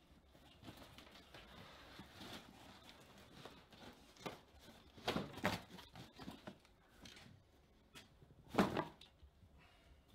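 Sheets of paper rustling as they are shuffled and handled, with small knocks of objects being moved on a cluttered table. The loudest rustles come about five seconds in and again near the end.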